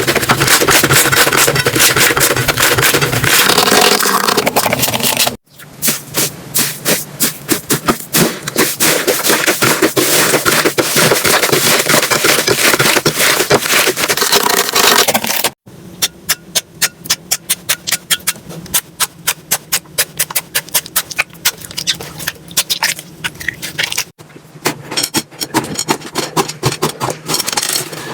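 Slime being squished and worked, with dense crackling and popping clicks; the sound breaks off abruptly three times as one clip gives way to the next.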